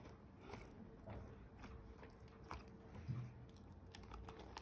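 Faint, scattered light clicks and soft crunching as an adjustable stainless-steel cake ring is pressed into and shifted around a freshly baked walnut sponge cake.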